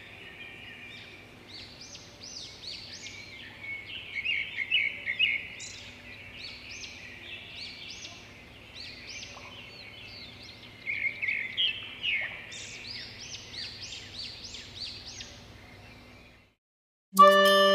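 Many small birds chirping and calling in a dense, overlapping chorus of short high notes, over a faint low hum. It cuts off near the end, and instrumental music starts.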